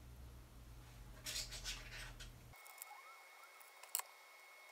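Faint scratching and clicking of tweezers and small screws being worked into an acrylic floppy-drive mount. About two and a half seconds in, the background hum cuts off abruptly and a faint steady whine remains, with one sharp click near the end.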